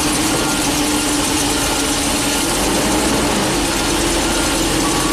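Ford E450's 6.8-litre V10 idling roughly at about 1,000 rpm, shaking as it misfires on cylinders 8 and 9. The misfires come from low compression in the freshly swapped engine.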